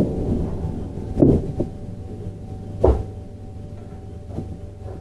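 On-board running sound of a JR 701-series electric train with Mitsubishi IGBT VVVF control. The rumble of the running gear fades as the train slows, with two thumps about a second and a half apart and a steady whine underneath.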